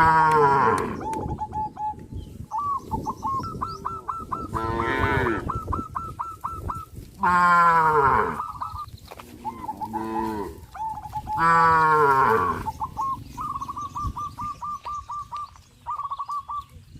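Cattle mooing: five loud, drawn-out moos, each falling in pitch, spread across the stretch. Between the moos a bird repeats a quick run of short, high chirping notes.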